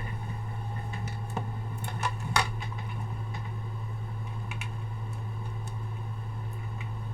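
Scattered light clicks and taps from handling the phone and hooking up power-supply leads, the sharpest about two and a half seconds in, over a steady low hum.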